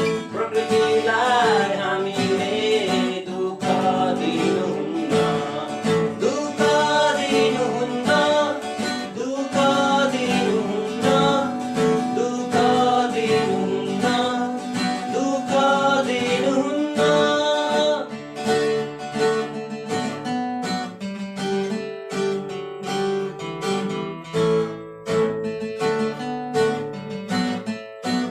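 Song with strummed acoustic guitar: a wavering sung melody over the chords for roughly the first two-thirds, then the guitar carries on alone.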